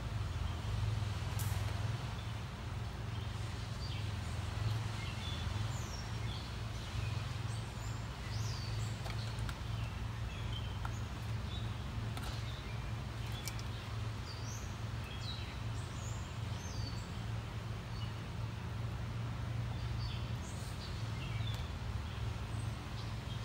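Small birds chirping on and off over a steady low hum, with a few faint clicks.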